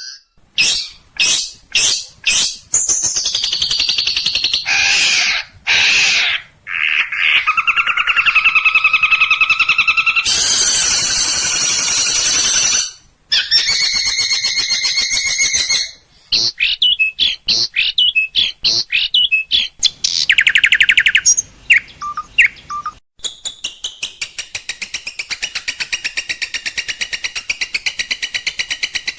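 A fast, changing medley of songbird calls: sharp repeated chirps and chattering phrases, a dense trill in the middle, and a long run of rapid, evenly spaced ticking notes over the last few seconds.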